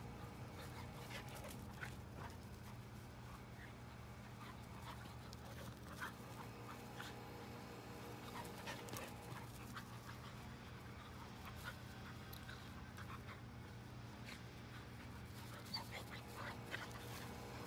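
A whippet and a vizsla puppy at rough play, tugging and chasing: faint, short dog noises scattered throughout, over a steady low hum.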